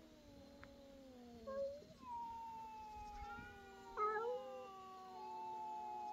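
An angry cat caterwauling: long, drawn-out yowls that slowly fall in pitch, broken by short sharp cries about a second and a half in and again about four seconds in. This is the hostile yowling of a cat facing off against another.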